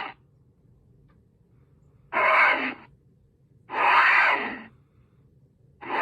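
Breathy, hoarse vocal huffs voiced as sound effects for a gorilla character: three separate calls of about a second each, plus the tail of one at the very start, with quiet between.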